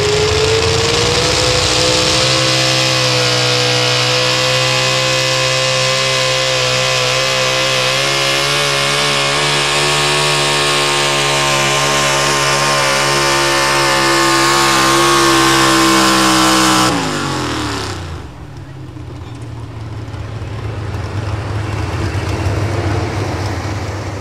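A Pro Stock four-wheel-drive pulling truck's engine revs up and runs at full throttle, steady and high, as the truck pulls the sled. About seventeen seconds in, the throttle is cut and the revs fall away sharply to a much lower run as the truck stops.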